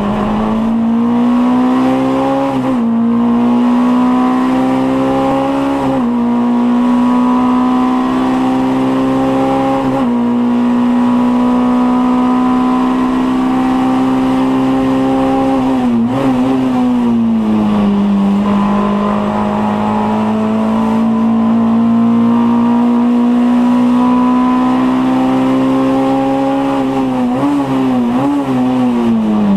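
Heard from inside the cabin: a Mk2 Volkswagen Scirocco 16v race car's 16-valve four-cylinder engine pulling hard at racing speed. The engine note climbs steadily, drops sharply at upshifts about three and six seconds in, and eases off around the middle. Near the end, several quick revving blips come as it downshifts into a corner.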